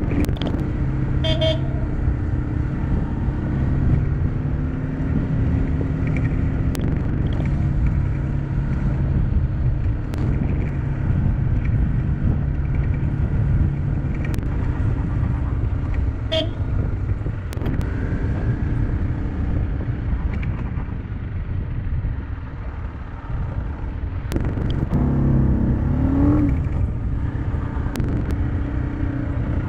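Motorcycle engine running steadily under way, heard from on the bike. Two short horn beeps come, about a second in and again about sixteen seconds in, and the engine note rises briefly near the end.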